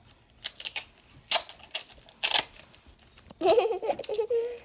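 Irregular sharp clicks and snaps of slime and its plastic tubs being handled. About three and a half seconds in, a child's drawn-out, wavering voice comes in.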